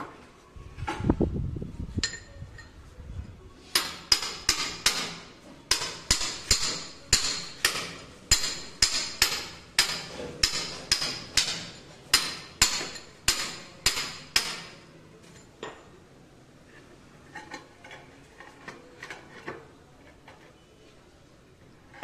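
A ceramic floor tile being tapped down into its mortar bed with a hand tool: about twenty sharp, ringing taps at roughly two a second, stopping about two-thirds of the way through, then a few faint clicks. A brief low rumble comes about a second in.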